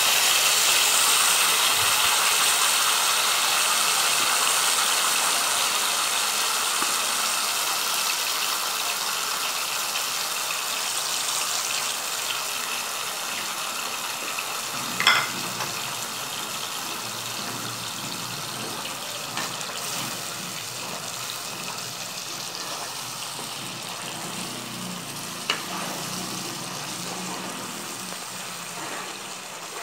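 Green onion-and-masala paste sizzling in hot oil and ghee in a pan, loud at first and slowly dying down as it fries. A couple of sharp clicks about halfway through and again near the end.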